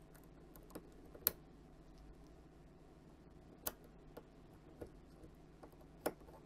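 Light metallic clicks as fine tweezers bend the latch wire of a push-button mains power switch whose latching mechanism fails to lock. There are about six scattered clicks: the loudest comes about a second in, another near the middle and a sharp one near the end.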